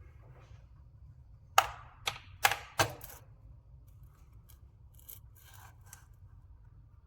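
Small hard parts and tools being handled: four sharp clicks and knocks in quick succession, followed by a few faint short scrapes.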